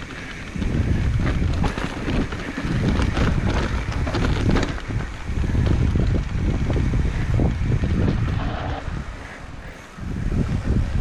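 Mountain bike riding down a rocky trail: wind buffets the action camera's microphone in a heavy rumble, over frequent short knocks and rattles from the tyres and bike on the stones. It eases briefly twice, just after the start and shortly before the end.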